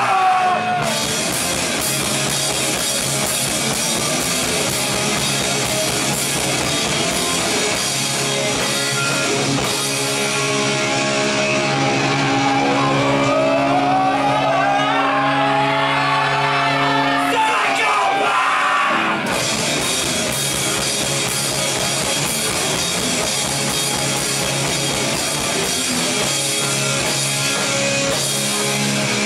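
Punk band playing live: electric guitars, bass and drum kit at full volume. Around the middle the cymbals drop away for several seconds under rising sliding notes, then the full band comes back in abruptly.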